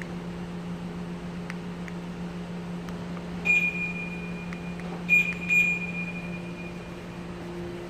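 Three high electronic chimes at one pitch: one about three and a half seconds in, then two close together about a second and a half later, each ringing on and fading. A steady low hum runs underneath.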